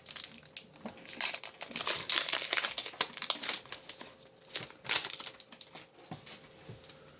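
Foil wrapper of a Pokémon booster pack crinkling as it is handled and torn open: a dense run of sharp crackles, busiest in the first few seconds and again about five seconds in, thinning near the end.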